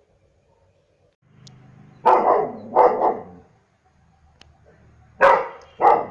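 German shepherd barking: four barks in two pairs, the first pair about two seconds in and the second near the end.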